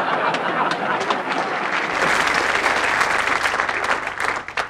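Studio audience applauding, the clapping dying away to a few scattered claps near the end.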